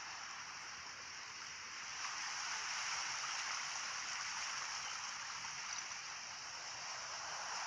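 Steady, even rushing hiss of mountain outdoor ambience with no distinct events, swelling slightly a couple of seconds in.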